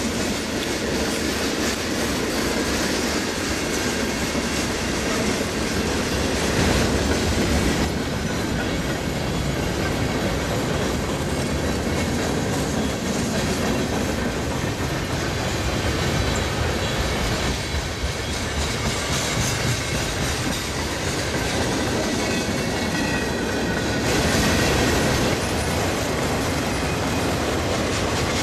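A train rolling steadily past close by, its steel wheels clattering on the rails, louder for a moment about a quarter of the way in and again near the end.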